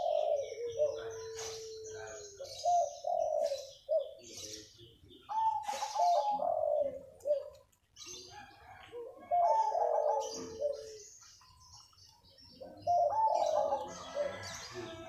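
Zebra dove (perkutut) cooing: five phrases of stuttering coos a few seconds apart, one of them ending in a long held note, with short high chirps of small birds in between.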